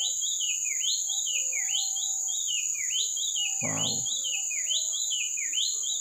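White-chested babbler singing without a break: a quick phrase of notes that leap up and then step down, repeated about twice a second, over a steady high drone.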